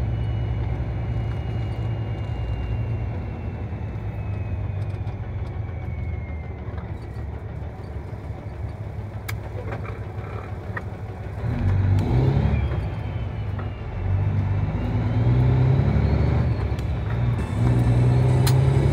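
Steady low rumble of a car driving, heard from inside the cabin. Past the halfway point, music with heavy low notes comes in and grows louder.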